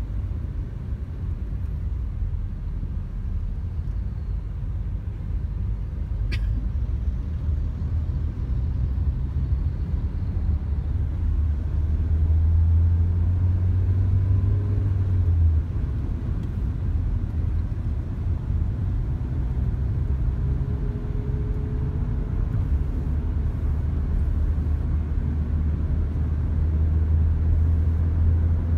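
Car cabin noise while driving in traffic: a steady low rumble of engine and tyres that swells twice as the car picks up speed. A single brief click comes about six seconds in, and a faint whine slowly rises in pitch near the end.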